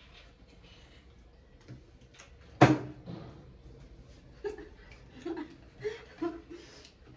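A partly filled plastic water bottle, flipped, lands on the table with one sharp thud about two and a half seconds in, followed by a few short, softer sounds.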